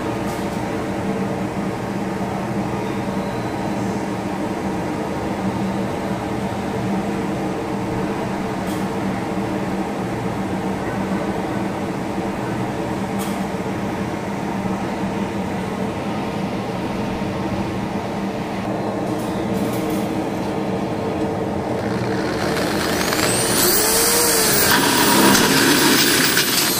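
A steady machine hum with a few fixed low tones. About 23 seconds in, a handheld electric drill starts boring into the galvanized steel of a metal-stud bracket, getting louder, with a whine that bends up and down in pitch. It is drilling a pilot hole for a blind rivet.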